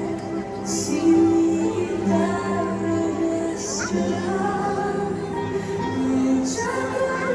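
Fireworks show soundtrack: orchestral music with sung vocals and long held notes, with a few short high hisses laid over it.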